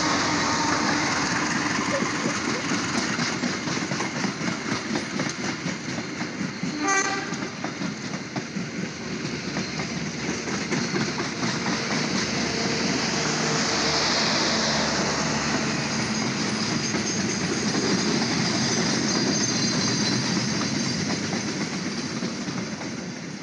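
KAI CC201 diesel-electric locomotive passing close by, followed by a long rake of passenger coaches rolling past with a steady rumble and the clickety-clack of wheels over the rail joints, heavier in the first several seconds. There is a brief sharp sound about seven seconds in. The noise fades near the end as the train draws away.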